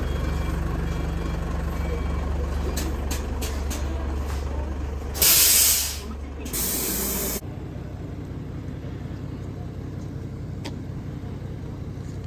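Train standing with a steady low engine hum, with two loud bursts of hissing air release about five and six and a half seconds in; the hum drops to a quieter running sound after the second hiss.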